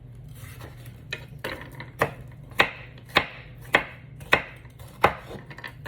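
Kitchen knife chopping a red bell pepper against a cutting board: about eight sharp chops at a fairly even pace, a little under two a second.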